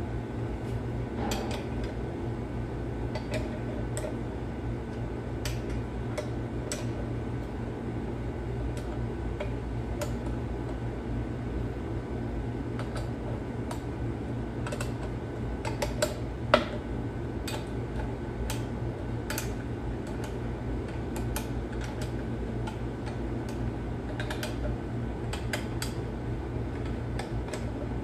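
Hand wrench working a bolt on a diesel engine's timing gear housing: scattered metallic clicks and taps of steel tool on steel, with one sharper knock about sixteen seconds in, over a steady fan hum.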